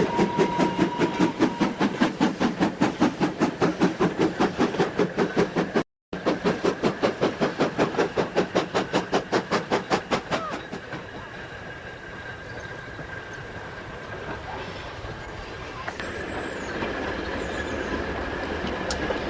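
GER N7 0-6-2T steam locomotive working hard, its exhaust beating in a fast, even rhythm of about five chuffs a second. About ten seconds in the chuffing stops sharply, leaving a quieter steady running sound.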